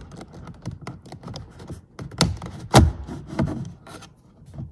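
Plastic window-switch trim panel of a Mercedes E-Class (S213) front door being levered out with a plastic trim wedge: plastic scraping and light clicking, with its retaining clips snapping loose in two sharp cracks a little after two seconds in, and a smaller one just after.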